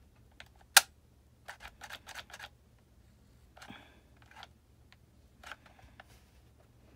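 Light clicks and taps of hands working a small hot glue gun against a paper craft piece. One sharp click comes just under a second in, followed by a quick run of small clicks and a few scattered taps later.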